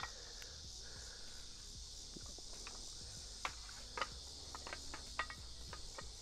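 Steady high-pitched insect chorus, with several sharp clicks and clinks as the pie iron and tongs are handled over the fire pit.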